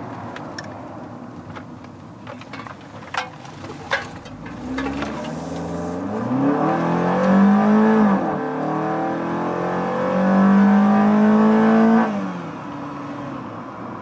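Fiat 500 engine breathing through a custom open intake and Magnaflow exhaust, accelerating hard with a growl, heard from inside the cabin. The pitch climbs, falls at a gear change about eight seconds in, climbs again, then drops away as the throttle is lifted near the end. A few sharp clicks come before the pull.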